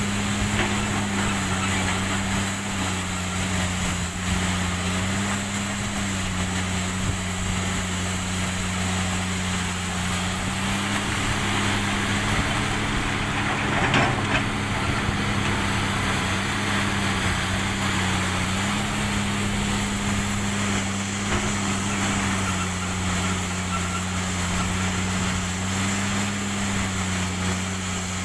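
Komatsu PC300 excavator's diesel engine running steadily as it works, its pitch shifting a little up and down under changing load. About halfway through, a short crash as a bucketful of coal is dumped into the dump truck's bed.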